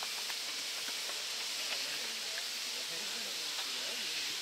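Steady hiss of misting nozzles spraying fine water mist over rocks and a pool, with faint distant voices behind it.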